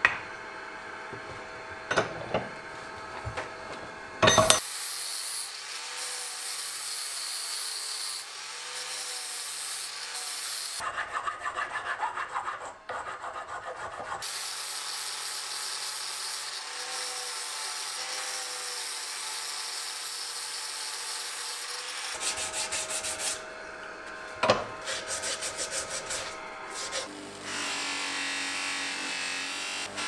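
A power-driven abrasive disc sanding and polishing a cast bronze plaque, a steady hissing rub of grit on metal. It is broken by sharp knocks and clatter as the piece is handled, twice in the first few seconds and again later on.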